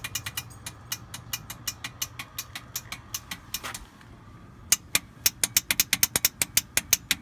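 Warn winch solenoid clicking rapidly and repeatedly, several clicks a second, instead of holding the winch engaged; the owner takes it for a bad solenoid. The clicking stops for about a second a little before four seconds in, then resumes louder, over the steady hum of the ATV engine idling.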